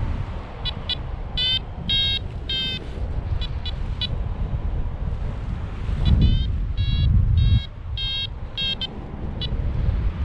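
Paragliding variometer beeping in two runs of quick electronic beeps with a short pause between, the tone a vario gives in rising air, over wind buffeting the microphone, which is strongest about six seconds in.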